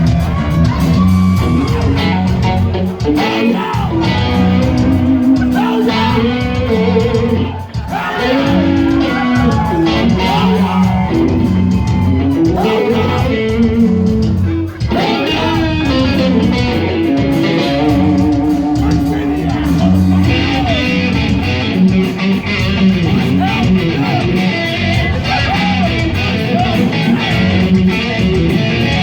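Hard rock band playing live, with electric guitar to the fore over bass and drums.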